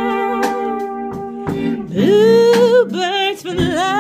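Live band rehearsing: a drum kit and an electric guitar under a melody of long held notes with vibrato. The melody swells loudest about two seconds in.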